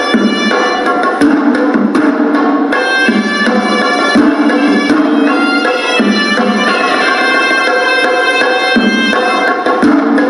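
Hewisi, Sri Lankan temple drum-and-pipe music: a horanewa (double-reed pipe) plays a melody of held notes over beaten drums.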